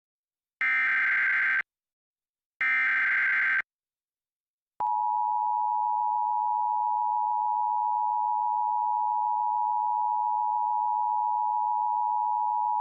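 Emergency Alert System broadcast signal: the last two of the three SAME header data bursts, each a buzzy electronic warble about a second long with a second's gap between, then about a second later the EAS attention signal, two steady tones sounded together for about eight seconds, announcing a tornado warning.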